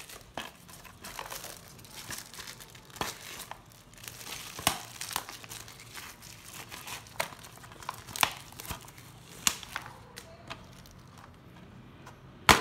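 Clear plastic shrink-wrap crinkling and crackling in irregular bursts as it is handled and pulled off a plastic DVD case. A single loud click near the end as the case is snapped open.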